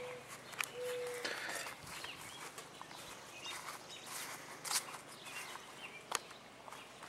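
Footsteps on gravel and grass, a scatter of light, irregular crunches and clicks, with two short squeaks in the first second or so.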